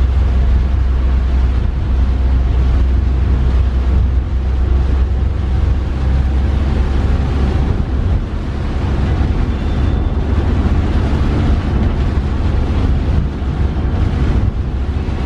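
Steady engine and road rumble inside the cabin of a moving passenger van, with a strong low drone throughout.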